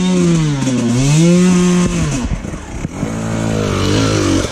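KTM dirt bike engine revved twice, each time climbing in pitch, holding, then dropping back, then running lower and less steadily near the end.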